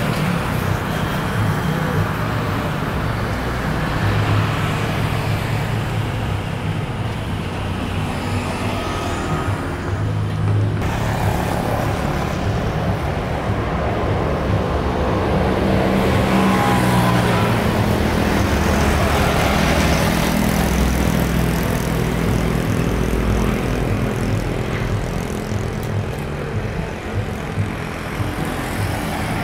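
Airliner jet engines at an airport: a steady distant jet drone, then after a cut a Boeing 737-800's CFM56 turbofans on final approach, swelling as the jet passes about halfway through and easing off as it comes down onto the runway near the end.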